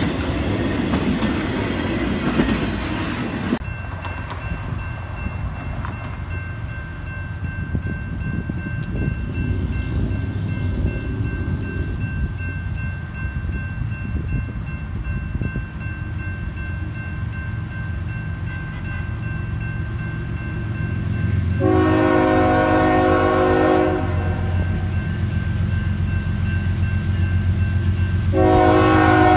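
The last cars of a passing intermodal freight train rumble and clatter over the crossing and cut off about three and a half seconds in, leaving a grade-crossing warning bell ringing. A diesel locomotive horn then sounds twice from an approaching train, a blast of about two seconds and another starting near the end, over a growing engine rumble.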